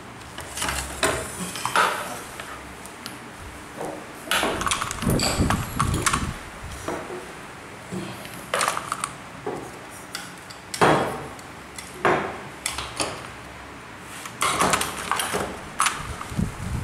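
Irregular clinks, knocks and rustling of brush cutter parts being handled during assembly: the aluminium drive-shaft tube and the engine unit are picked up, turned and fitted together. The engine is not running.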